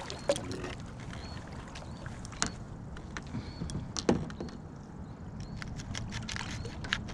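Scattered knocks and small clicks of fishing gear being handled in a small boat, over a low steady rumble, with a few faint high chirps.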